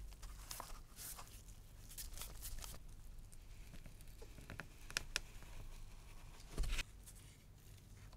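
Faint workbench handling sounds of leather being worked onto a wooden strop: scattered soft clicks, taps and rustles, with one dull thump about two-thirds of the way through.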